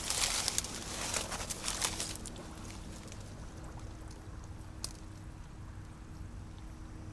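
Water splashing and trickling for about two seconds, with small clicks, then it drops to a quiet background with a faint steady hum.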